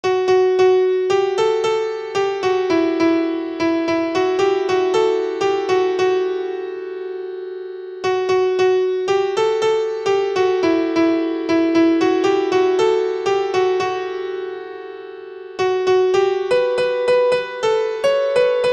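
Instrumental ringtone melody played on a piano-like keyboard: a phrase of quick struck notes that fade out, starting over about 8 seconds in and again near 15 seconds in.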